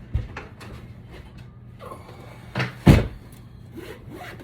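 A few knocks and bumps from objects being handled, with a sharp knock at the start and the loudest thump about three seconds in, typical of a cupboard or drawer being opened and shut.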